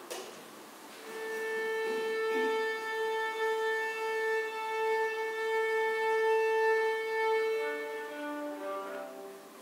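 Clarinet and two violas playing a ländler: one long held note sounds for about seven seconds, then a short run of falling notes comes near the end.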